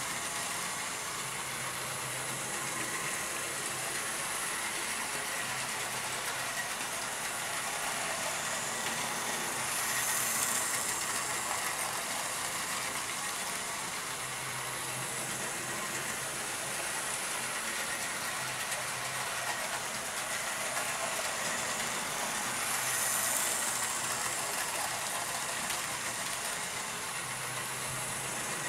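Hornby OO gauge model train running around a loop of track: a steady whir from the locomotive's small electric motor and the wheels on the rails. It grows louder twice, about 13 seconds apart, as the train comes round close by.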